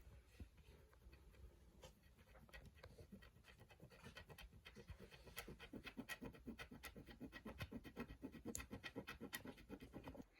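Faint scraping of a stylus on rainbow scratch paper, rubbing off the black coating to fill in a drawn area. The short strokes are sparse at first and become a quick run of several a second from about four seconds in.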